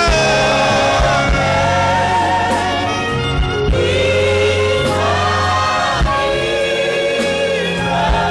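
Gospel worship song: voices holding long, slow notes over a band with bass and a regular kick drum.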